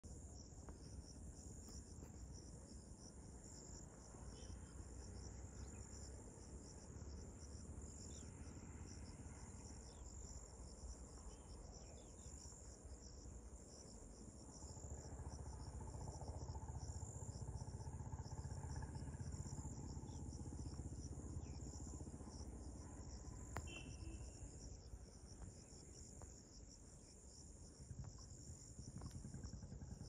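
Steady, high-pitched chorus of insects chirring in a fast, even pulse. A faint low rumble underneath grows louder through the middle and fades again.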